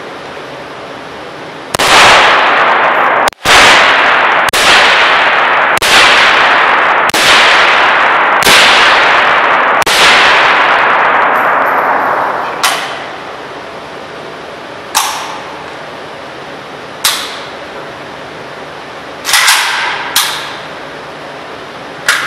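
AK rifle fired through a prototype quick-detachable suppressor with supersonic ammunition: seven loud sharp cracks a little over a second apart, each ringing out in a long echoing tail. Several fainter, shorter cracks follow at intervals of about two seconds.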